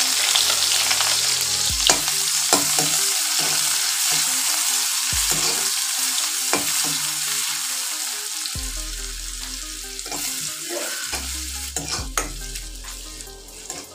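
Sliced onion sizzling in hot mustard oil in a kadai. A metal spatula stirring it clicks and scrapes against the pan a few times. The sizzle gradually dies down as the oil cools around the onion.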